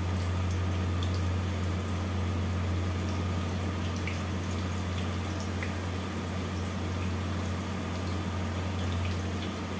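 Hot oil sizzling steadily in a steel kadhai as pieces of methi mathri dough deep-fry, with a few small crackles, over a steady low hum.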